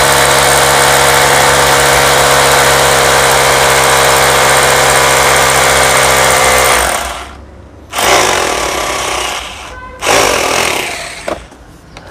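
Corded rotary hammer drill in drill-and-hammer mode, boring a 10 mm bit into a stone block: a steady hammering run that stops about seven seconds in, then two short bursts that each die away.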